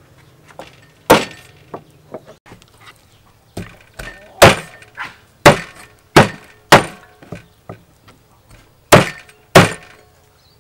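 Cleaver chopping a whole chicken into pieces on a thick wooden chopping block: about eight sharp chops at irregular spacing, each a hard knock of the blade into the wood.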